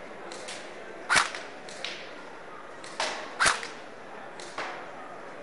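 Bolt AK-74 airsoft electric replica with heavy recoil system firing single shots, each a sharp crack. One comes about a second in, then two about half a second apart around three seconds in, with fainter clicks between.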